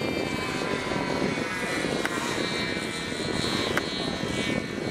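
Radio-controlled model airplane engine running at high revs: a steady, high-pitched buzz with slight shifts in pitch. Two short sharp clicks sound about two and four seconds in.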